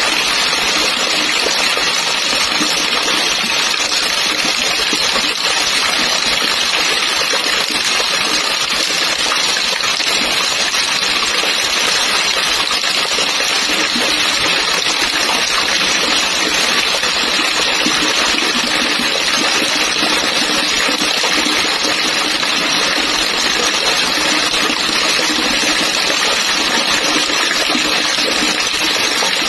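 Heavy rain falling and splashing onto water: a steady, even rushing hiss that does not let up.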